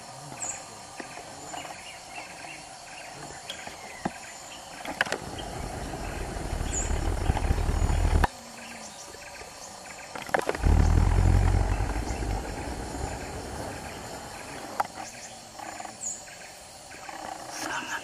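Outdoor forest ambience: a steady insect drone with a few short high chirps, broken twice by a loud low rumble lasting a few seconds. The first rumble builds up and cuts off suddenly about eight seconds in, and the second starts abruptly a couple of seconds later and fades.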